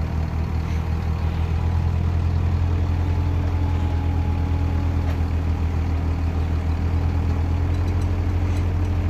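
Flatbed truck's engine idling steadily with a low, even rumble.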